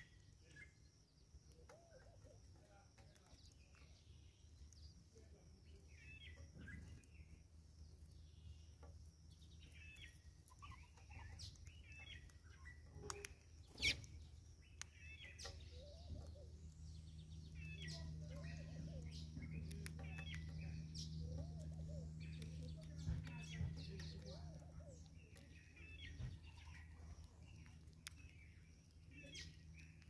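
Small birds chirping and calling on and off in the background over a low steady hum that grows louder in the middle. One sharp click stands out about 14 seconds in.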